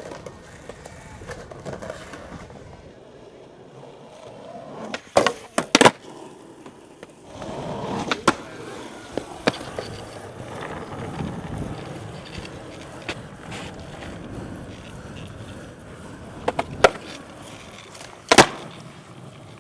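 Skateboard wheels rolling on concrete, broken by sharp clacks of the board popping and landing during tricks: a cluster of hits about five seconds in, one near eight seconds, and two more near the end.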